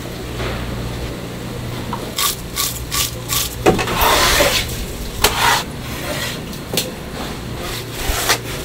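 Fish being prepared with a knife on a cutting board: a run of short rasping scrapes and a few knocks, over a low steady hum.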